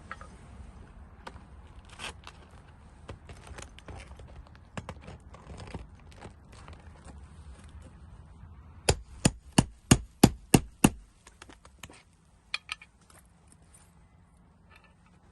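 A hammer striking about seven quick, sharp blows in a row, a bit over three a second, partway through. Lighter taps and scraping are heard before the blows.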